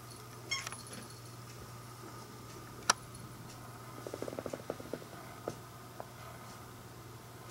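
A small bell on a cat's collar jingles briefly about half a second in as the cat turns. A single sharp click follows near the middle, then a quick run of soft ticks.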